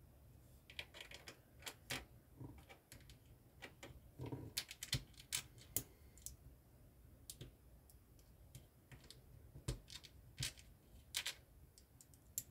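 LEGO bricks being handled and pressed together by hand: irregular sharp plastic clicks and taps, bunched in short flurries.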